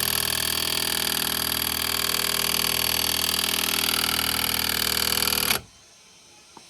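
Power impact wrench running continuously on a lug nut over a washer, drawing a new wheel stud into the hub, then cutting off abruptly about five and a half seconds in.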